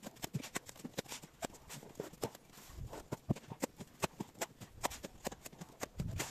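A steel plastering trowel scraping and clinking against a metal wheelbarrow while scooping wet plaster, then throwing it onto a brick wall. The result is a rapid, irregular run of sharp clicks and knocks, with a couple of duller thuds.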